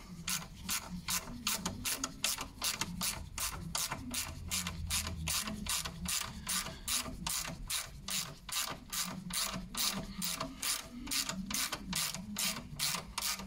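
17 mm flat ratchet wrench clicking steadily, about three to four clicks a second, as the nut on a tie rod end's ball-joint stud is run down and tightened.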